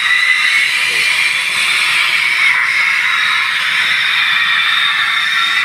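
Steady mechanical hiss with a faint high whine, loud and unbroken.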